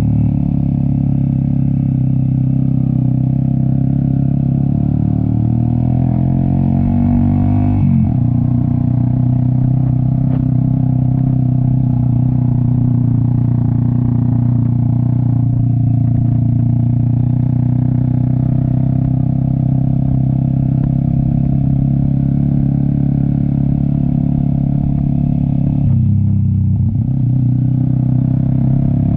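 Cafe 400 motorcycle with an SC Project exhaust, running under load uphill. The engine note climbs and then drops sharply about eight seconds in, like an upshift, and dips briefly and picks back up near the end.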